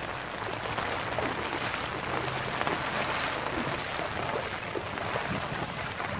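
Heavy rain falling onto a flooded street, a steady, even hiss of water.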